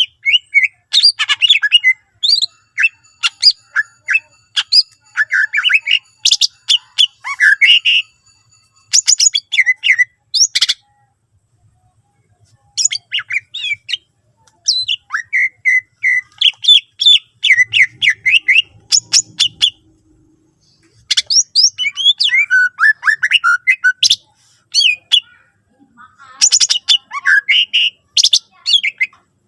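Cucak ijo (green leafbird) singing a loud, varied song of rapid chirps, trills and whistled notes in phrases of a few seconds with short pauses between them, its song full of mimicked phrases of other birds.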